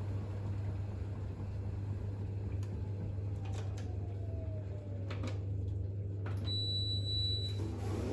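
Bosch WAX32GH1 front-loading washing machine during its intermediate spin with a full load: a steady low drum-and-motor hum, with a tone that slowly falls in pitch midway as the drum slows, a few light clicks, and a brief high-pitched whine near the end.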